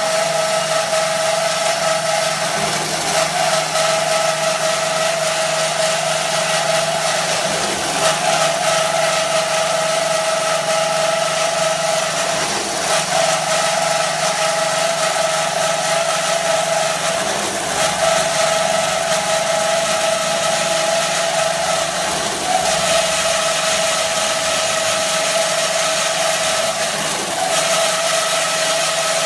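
IMET KS-1202 NC band saw machine running, a steady machine hum and whine over a constant hiss, with a brief dip in pitch about every five seconds.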